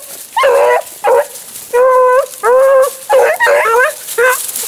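Rabbit hound baying in a string of about seven short, pitched calls, some held level and some rising and falling: a hound giving tongue while running a rabbit's scent.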